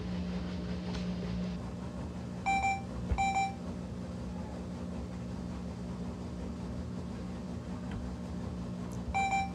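Maytag front-load washer running with a steady low hum as its drum turns. Its control panel beeps: two short beeps about two and a half seconds in, and one more near the end.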